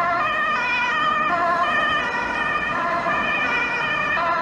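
Electronic ambulance siren wailing, its pitch stepping and wavering up and down.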